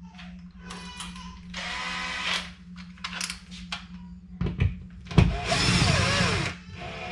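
Cordless drill boring into the wall, run in two bursts: a short one about a second and a half in, then a longer, louder one about five seconds in, its motor pitch wavering under load.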